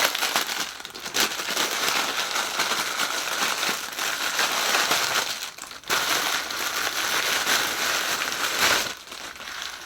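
Plastic packaging crinkling and rustling as a haul item is handled and unwrapped, with a brief lull a little under six seconds in.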